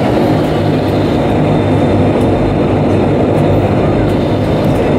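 Dash 8 Q300's Pratt & Whitney Canada PW123 turboprop engines running at taxi power, heard inside the cabin: a steady low drone with a faint high whine.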